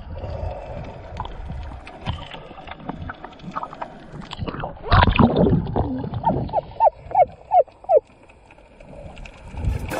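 Water sloshing and gurgling around a snorkeller's camera at the sea surface, with a louder splashy burst about halfway through. It is followed by a run of about six short falling chirps.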